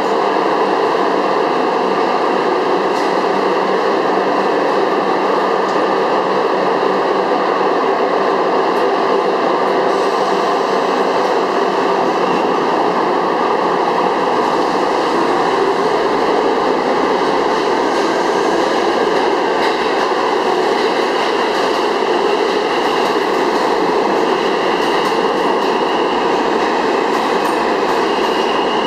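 Budd-built R32 New York City subway train pulling out of an underground station: the loud, steady noise of its motors and steel wheels running on the rails.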